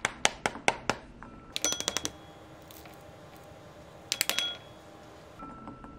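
Fingers tapping the back of a halved pomegranate, knocking arils loose so they drop and click into a ceramic bowl, which rings briefly with each hit. A quick run of taps in the first second, then two short bursts, one near two seconds in and one a little after four seconds.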